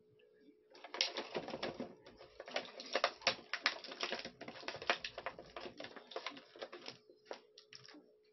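Rapid, irregular clicking and crackling of stiff plastic packaging being handled, as small accessories are worked out of it. It starts about a second in, runs densely for about six seconds, and is followed by a few scattered clicks near the end, over a faint steady hum.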